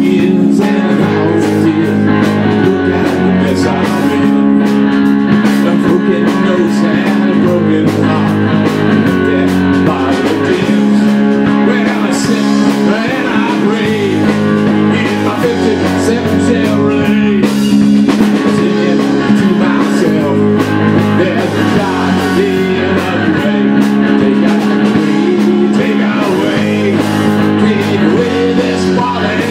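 Live rock band playing: electric guitar, bass guitar and drum kit, loud and continuous, with a bass line that shifts notes every couple of seconds.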